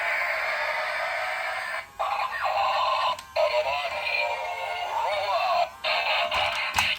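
Thin, tinny music with synthetic-sounding singing, its sound cut off below the low notes. It breaks off briefly about two, three and six seconds in.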